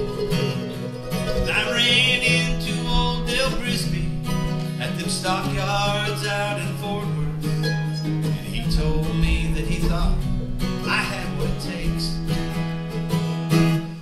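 Acoustic guitar and mandolin playing a country-bluegrass tune, with quick picked notes over steady low bass notes.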